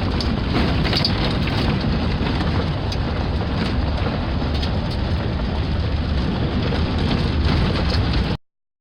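Steady rumble of road and wind noise from a moving car, which cuts off abruptly about eight seconds in.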